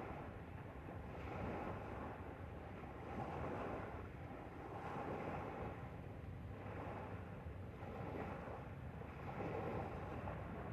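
Wind buffeting the microphone over water rushing past a moving boat: a steady low rumble with a hiss that swells and fades every second or two.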